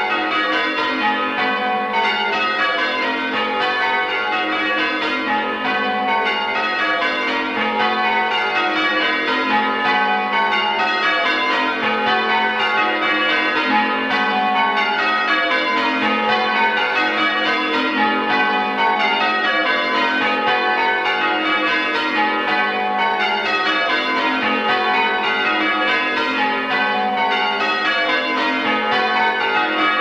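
Village church bells rung full-circle in rounds: each bell strikes in turn from highest to lowest, and the descending sequence repeats over and over in an even, unbroken rhythm.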